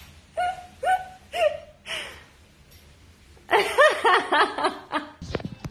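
A small child's voice: three short high cries, then a quick run of giggling about three and a half seconds in.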